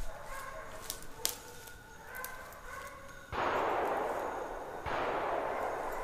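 Pack of petit basset griffon vendéen hounds baying in the distance while hunting. About halfway through, a louder steady hiss cuts in suddenly, breaks off for a moment and comes back.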